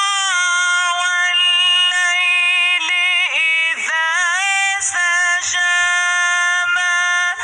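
A high, wailing voice-like tone, held in long steady notes with sudden swoops and wavers in pitch between them.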